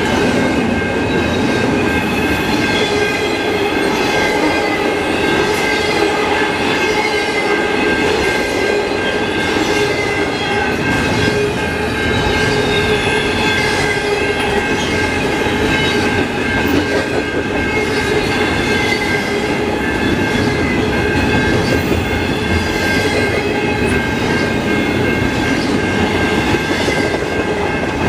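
Freight train of double-stack intermodal container well cars rolling past: a continuous rumble and clatter of steel wheels on rail, with steady high tones ringing over it.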